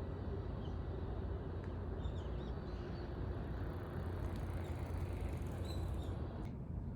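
Faint bird chirps over a steady low outdoor rumble.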